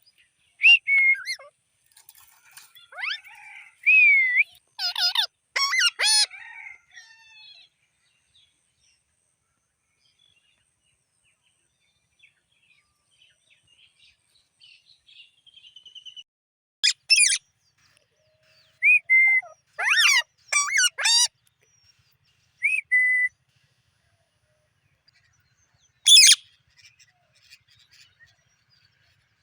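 Alexandrine parakeet (pahadi parrot) calling in bursts of loud, harsh squawks mixed with short whistled notes, with a quiet spell of several seconds in the middle.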